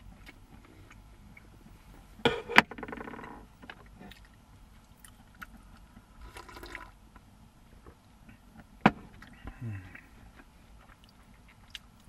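Small, quiet sounds of someone eating and drinking: soft sips from a coffee mug, and a couple of sharp knocks as the cup and food are handled.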